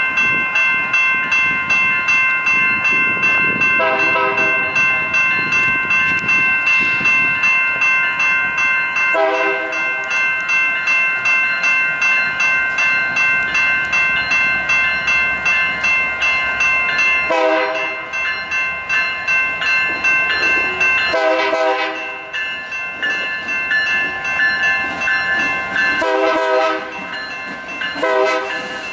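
Railroad crossing warning bells ringing steadily with rapid repeated strikes. A train horn sounds six short blasts over them.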